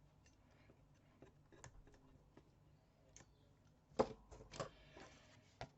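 Faint handling of paper and score tape: scattered small ticks and clicks, with one sharp click about four seconds in and a few more just after.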